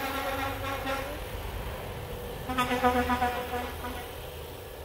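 Hose-end foam gun spraying a steady hiss of soapy foam onto a car. A pitched, warbling tone comes in twice over the spray, once at the start and again about two and a half seconds in.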